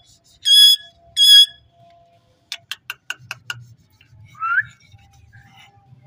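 Indian ringneck parakeet giving two short, high whistling calls about half a second apart, then a quick run of five or six sharp clicks, and a single short rising whistle near the end.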